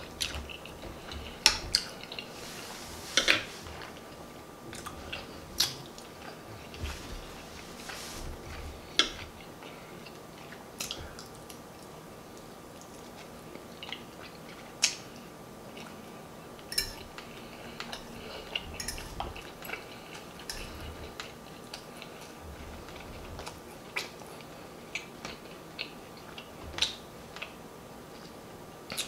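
Close-miked chewing and lip-smacking on soft turkey wing meat and mashed potatoes, with irregular short wet smacks and the odd click of a fork against the platter.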